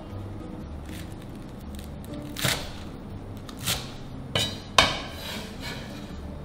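Chinese cleaver chopping green onions on a wooden cutting board: four sharp knocks in the middle, the last the loudest, over soft background music.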